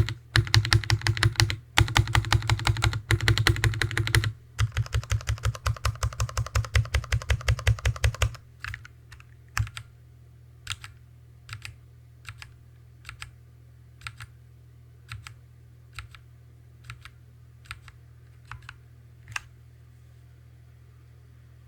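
Hansung TFG ART mechanical keyboard with stock Artbox Red linear switches typed fast for about eight seconds, each stroke with a deep thud from the desk resonating under it. Then single keystrokes about once a second, stopping about two seconds before the end.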